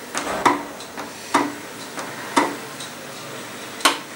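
Wooden spoon stirring thick milk pudding in a metal pan, knocking sharply against the pan about once a second, four times in all, with a soft scraping between the knocks.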